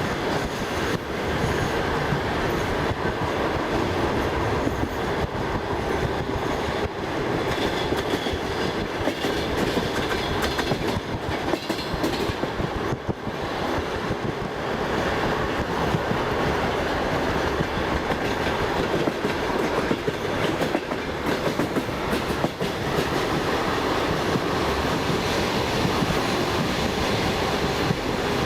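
Passenger train carriage running along the track: a steady rumble with the clickety-clack of the wheels knocking over rail joints.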